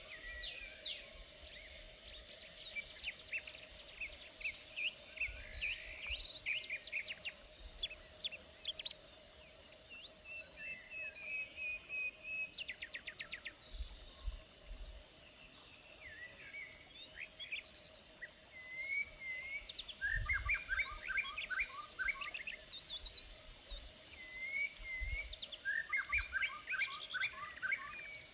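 Several songbirds singing and calling: quick chirps, rapid trills and short whistled phrases overlapping throughout, with a faint steady hum underneath and short low wind rumbles now and then.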